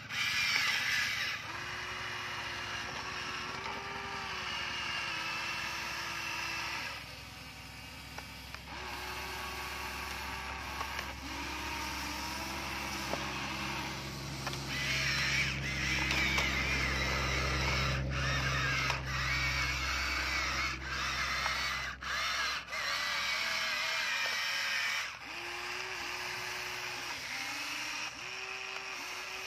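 Huina remote-control toy excavator's small electric motors whirring in short stop-start runs as the arm, boom and tracks move, the whine stepping up and down in pitch. A low hum builds and fades in the middle.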